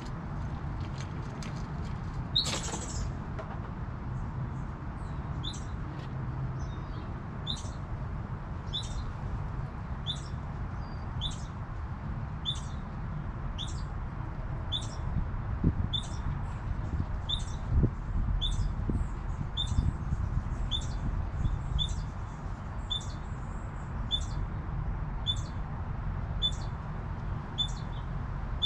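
A short, high chirp that falls in pitch, repeated evenly about once every second and a quarter, from a small animal's call. It starts about five seconds in, after a brief louder noise, over a steady low background rumble.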